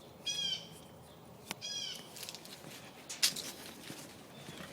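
Two short, high-pitched animal calls about a second and a half apart, followed by a few sharp clicks.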